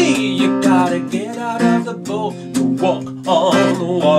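Acoustic guitar strummed in a steady rhythm, with a man's singing voice over it.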